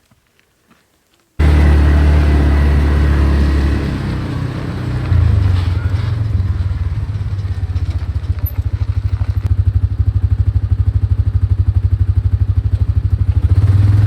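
A motor vehicle's engine running close to the microphone, cutting in suddenly about a second and a half in. Its pitch steps up about five seconds in, and it then runs with an even, fast pulsing.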